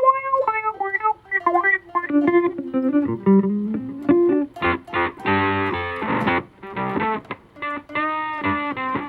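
Electric guitar played through real-time digital effects. It starts with single plucked notes, one of them bent upward. About four and a half seconds in, the tone turns thick and dense with its highs cut off, as an effect is switched in.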